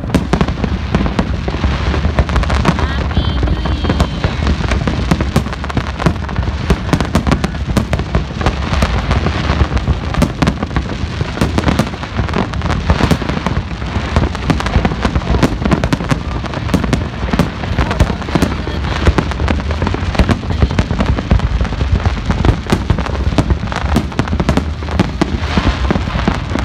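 Aerial fireworks display: a dense, continuous barrage of bangs and crackling shells with no pause.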